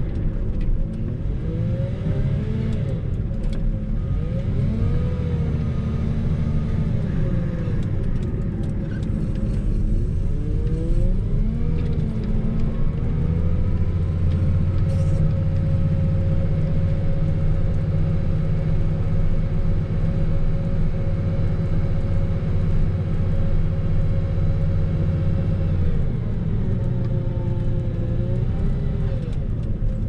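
Engine of a snow-plowing vehicle running and working. Its pitch rises and falls repeatedly for the first dozen seconds, holds steady for about twelve seconds, then dips and climbs again near the end.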